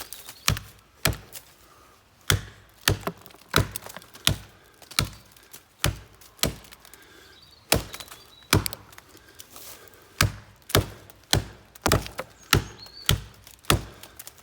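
Axe blows chopping into a standing tree's trunk, about nineteen sharp strikes at roughly one or two a second, with short pauses about two and nine seconds in. The Origin Knives Bushcrafter hatchet, without its splitting head, is cutting the back cut that fells the tree.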